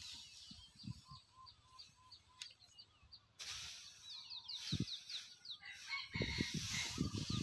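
Birds chirping in quick repeated short calls, with dry rice straw rustling as it is forked and pushed on a trailer-load pile, the rustling growing louder and busier near the end.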